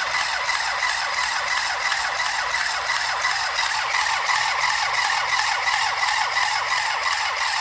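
Handheld battery-powered mini sewing machine running steadily, its small motor whirring and its needle clattering in a fast, even rhythm as it chain-stitches through cloth.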